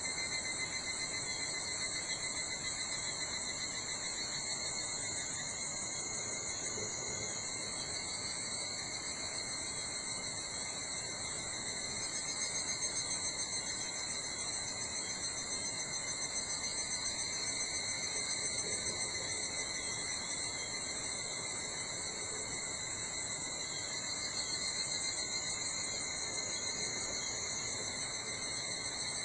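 Chorus of insects in a summer forest, several steady high-pitched trills at different pitches running together without a break.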